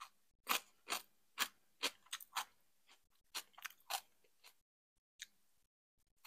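A person chewing crunchy food close to the microphone, with sharp crunches about two a second, a short pause, then another run of crunching.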